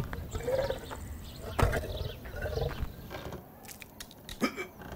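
A big cat's growls and snarls, with a sharp knock about a second and a half in, then a few light clicks.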